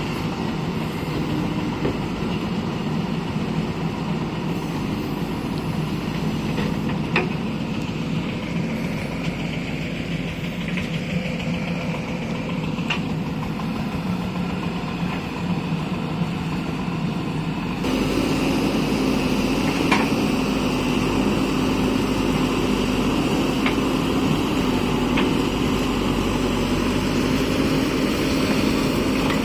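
JCB backhoe loader's diesel engine running steadily as the machine digs and dumps wet mud with its rear bucket, with a few light knocks. About two-thirds of the way through the engine grows louder and its note changes.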